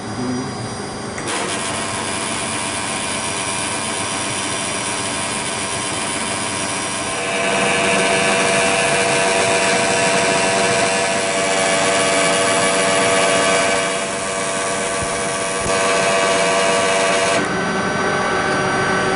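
Pinnacle PD16 pillar drill running free with a wire wheel brush spinning in its chuck: a steady motor hum and whine with several held tones, getting louder about seven seconds in.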